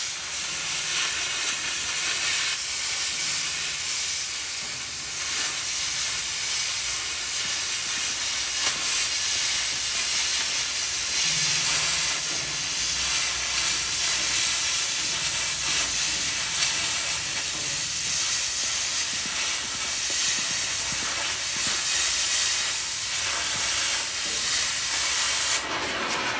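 Oxy-fuel cutting torch hissing steadily as it cuts through steel, with faint crackling from the molten metal and slag.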